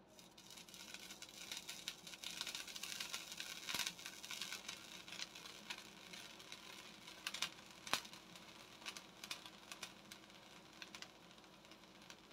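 Chopped tomatoes with a little water simmering under a glass lid in a stainless pan, with faint crackling and spattering. The crackle is densest in the first few seconds, then thins to scattered pops, the sharpest about eight seconds in.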